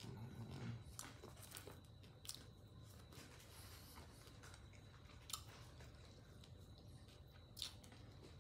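A person chewing crispy fried catfish close to the microphone, quietly, with a few short crunches.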